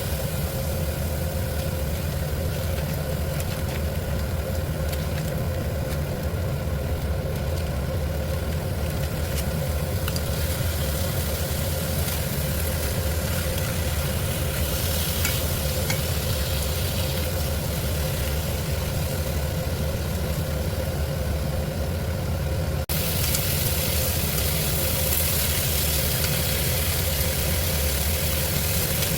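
Food sizzling as it fries in a pan, over a steady low hum. The sound shifts abruptly about 23 seconds in, as at an edit.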